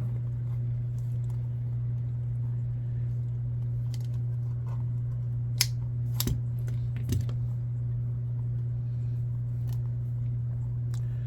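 A few light clicks and taps from handling a rubber RC crawler tire on its wheel while poking vent holes in it, the sharpest about halfway through, over a steady low hum.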